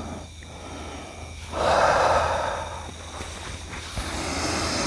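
A person's heavy, forceful breathing: a long, loud exhale starting about a second and a half in, and another near the end, over a low steady hum.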